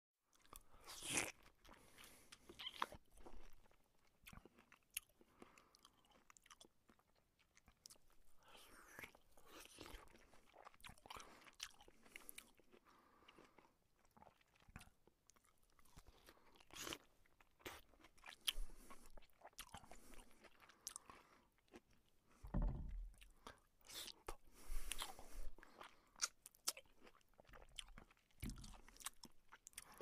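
A person eating close to the microphone: irregular chewing, biting and crunching mixed with slurps, with louder bites or slurps every few seconds.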